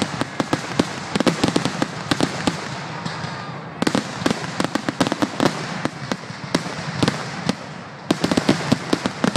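Fireworks display: a rapid barrage of bangs from aerial shells bursting overhead, several a second.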